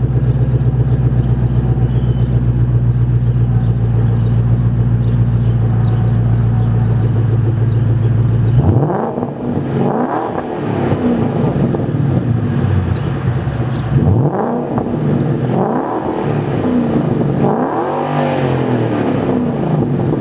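2013 Mustang GT's 5.0 V8 through an MBRP Race Series cat-back and Pypes X-pipe exhaust, idling with a steady deep rumble. About nine seconds in, the engine speed starts climbing and falling again several times, each rise and drop lasting a couple of seconds.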